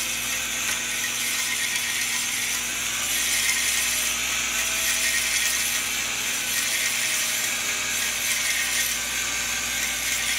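Drill-driven cylinder hone spinning steadily in an oiled, scored bore of a Ford 5.0 V8 block, its stones scraping against the cylinder wall. The honing is being tried to knock down raised metal around deep gouges in the bore.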